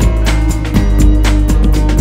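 Background music with a steady beat over sustained bass and melodic notes.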